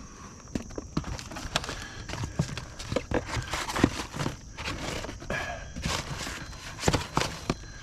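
Irregular knocks, scuffs and rustling of underlayment membrane being worked into place on a roof by hand, with footsteps on the roof.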